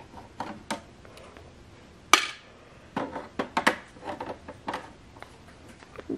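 Screwdriver working the case screws of a dot-matrix printer: scattered clicks and knocks of the tool against the plastic case, with one loud sharp knock about two seconds in and a quick run of clicks after it.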